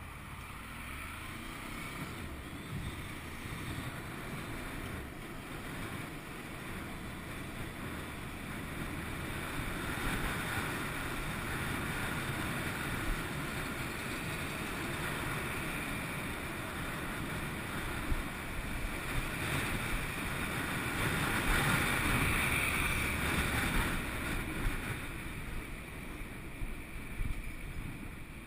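Wind rushing over a helmet-mounted camera's microphone, with a Honda VFR800 VTEC's V4 engine running underneath as the motorcycle rides in traffic. The rush grows louder as the bike gathers speed and is loudest a little past two-thirds of the way through.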